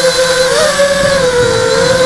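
Brushless motors and propellers of a ZMR hexacopter in flight, heard from its onboard camera: a steady whine whose pitch steps up briefly about half a second in and eases back as the throttle changes.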